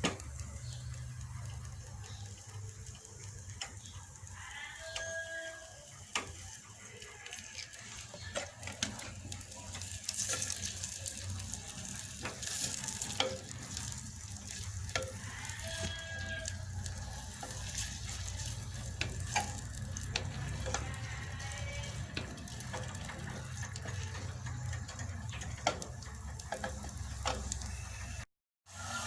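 Food sizzling as it fries in a pan, with a utensil stirring and clicking against it, over a steady low hum.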